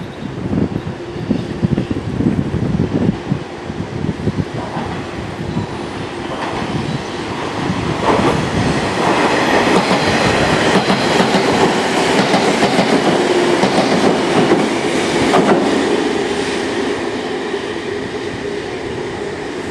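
JR 485-series "NO.DO.KA" joyful train running past close by, its wheels clattering over rail joints. The sound then builds to a steady rush of running noise with a faint wheel squeal and eases off near the end.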